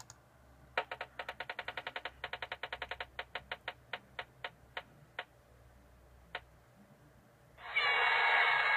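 Slot-machine-style random name picker on a computer, its spinning reel ticking: rapid clicks about ten a second that slow down and space out until the reel stops. A steady electronic win sound then comes in near the end.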